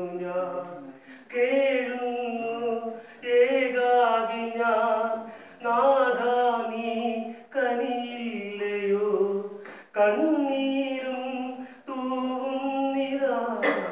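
A man singing alone without accompaniment, holding long, wavering notes in phrases of about two seconds with short breaths between them.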